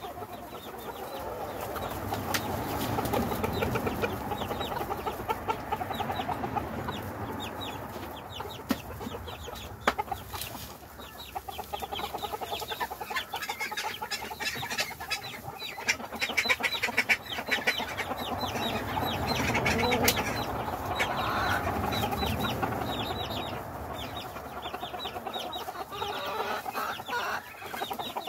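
A flock of silkie chickens clucking and chattering continuously, many birds calling at once. A couple of sharp clicks stand out, one about a third of the way in and one about two thirds in.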